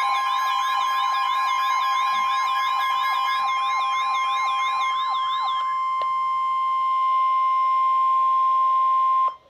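Emergency Alert System alarm: a single steady tone near 1 kHz, the pitch of the NOAA Weather Radio 1050 Hz warning alarm tone. For its first five and a half seconds a fast-warbling electronic siren-like sound plays over it. The tone cuts off abruptly near the end.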